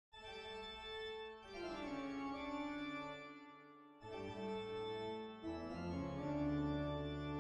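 Slow organ music playing held chords that change every second or two, with a brief break about four seconds in.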